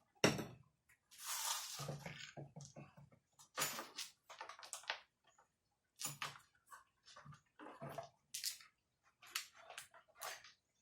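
Irregular clicks, knocks and light clatter of tools and small parts being handled while working on a brush cutter, with a brief scraping rustle about a second in.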